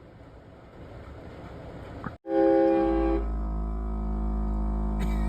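Low, steady vehicle noise, then about two seconds in a vehicle-mounted air train horn, fed by an air compressor, blasts a loud chord of several steady notes. The horn is held until it cuts off at the end.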